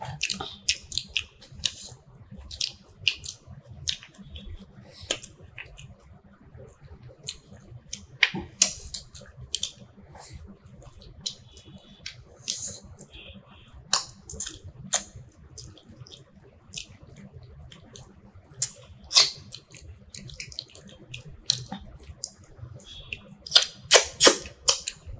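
Close-up eating sounds: scattered wet smacks and clicks of mouths chewing fish curry and rice, irregular, with a quick run of louder smacks near the end.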